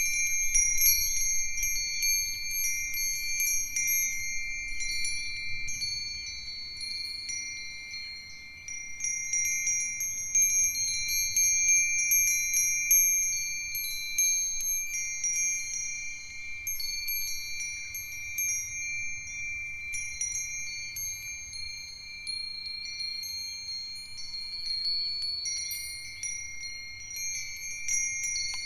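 Five Japanese fūrin wind chimes, among them Myochin iron fire-chopstick chimes, Nanbu ironware bells, a Nousaku chime and a sanukite stone chime, ringing together in the breeze. Frequent light strikes keep several high, long-ringing tones sounding over one another, with a brief lull about eight seconds in.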